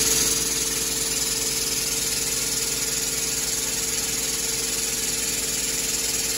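Hydraulic shop press pump running steadily, a loud even hiss with a hum and a fast pulse underneath, as the ram presses down on a bent steel sprayer boom link to straighten it.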